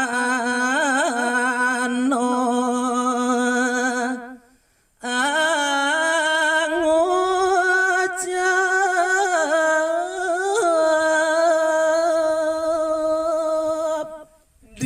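A man singing Balinese geguritan (tembang in pupuh Ginada) unaccompanied. He sings a long, ornamented phrase held mostly on one note, breaks off briefly about four seconds in, then sings a second long phrase that is held and slowly wavers.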